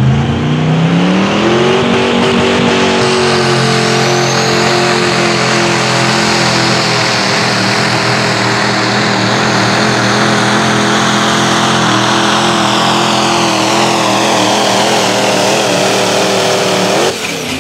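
Pro stock diesel pulling truck, a Ford Super Duty, running at full throttle under the load of the sled. The engine revs climb over the first two seconds, then hold high and nearly steady with a slight waver through the pull. Near the end the engine note drops off suddenly as the run ends.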